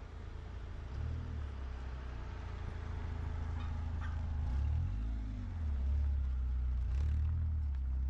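Kia Picanto hatchback's small engine running as the car drives slowly along a dirt track, a low rumble that shifts up and down in pitch a few times as the throttle changes.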